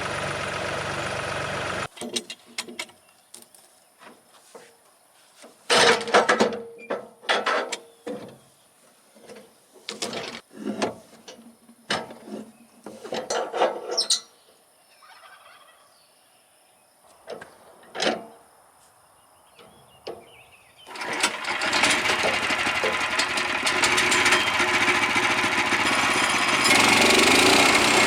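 Small gasoline engine of a portable bandsaw mill running, cutting off abruptly about two seconds in. A stretch of scattered knocks and clatter follows, then the engine runs steadily again for the last quarter, getting louder near the end.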